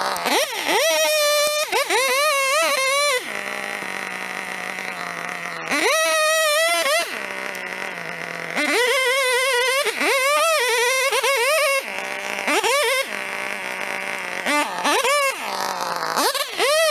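Two-stroke chainsaw repeatedly revved up to full throttle, its high pitch wavering while held, then dropping back to a lower, steadier run between revs, about five times.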